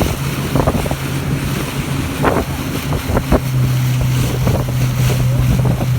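Boat motor running steadily under way, with wind buffeting the microphone; the engine note grows stronger a little past halfway through.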